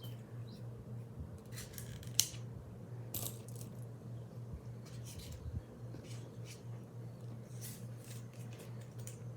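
Small metal snap button charms clicking and clinking as they are handled and counted, a scattering of light sharp clicks with the loudest about two seconds in, over a steady low hum.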